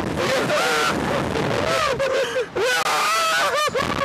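Two men on a reverse-bungee ride yelling and laughing in wavering, drawn-out cries, with a quick run of short laugh-like yelps near the end, over a steady rush of wind across the microphone.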